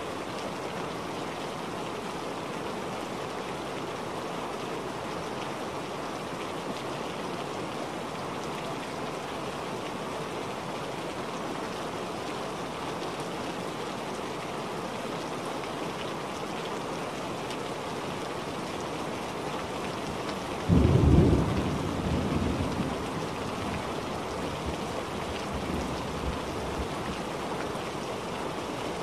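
Steady rain falling, with a sudden clap of thunder about 21 seconds in that rumbles away over the next several seconds. The thunder is the loudest sound.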